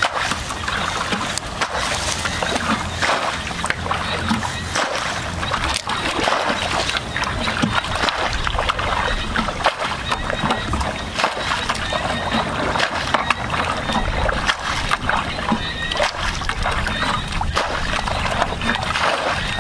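Hands splashing and sloshing in shallow muddy water, a steady run of small splashes.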